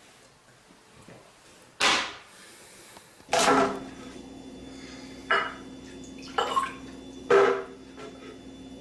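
Glassware and a bottle being handled on a table: about five sharp clinks and knocks a second or so apart, with a low steady hum that comes in about three seconds in.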